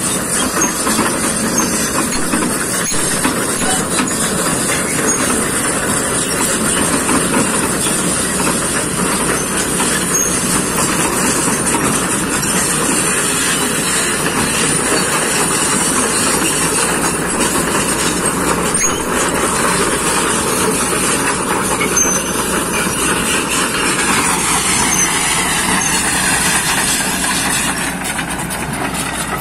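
Kobelco excavator's diesel engine and hydraulics running hard, a loud, steady mechanical din. Near the end the pitch sinks as the revs drop.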